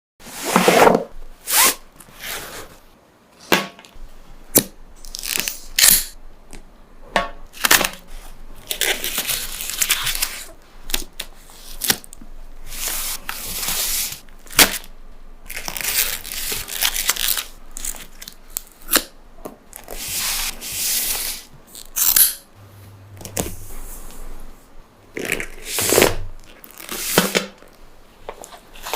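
Packaging being handled and opened while unboxing a handbag: crinkling and rustling, some tearing, and sharp clicks and taps in an irregular run.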